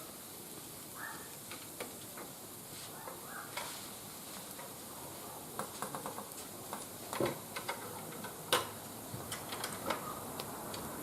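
Wood fire crackling and hissing, with scattered sharp pops that come more often and louder from about halfway in.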